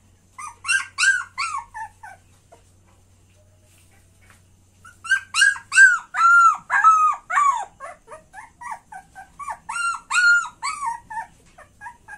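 Puppy whining in rapid strings of short, high-pitched yelps that fall in pitch: a burst of about a second and a half, then, after a pause of about three seconds, a longer run of about six seconds.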